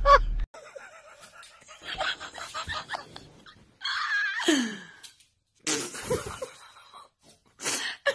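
A person laughing in short bursts, with one long falling vocal sound about halfway through.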